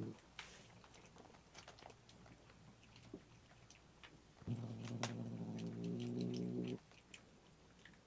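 Domestic cat growling: one low, steady growl lasting a little over two seconds, starting about halfway through, a sign of the cat's displeasure. Faint scattered clicks run underneath.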